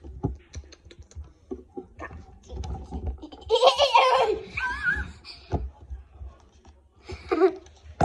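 A girl laughing loudly for about a second, with a shorter vocal sound near the end, among small clicks and taps from handling a plastic water bottle close to the phone.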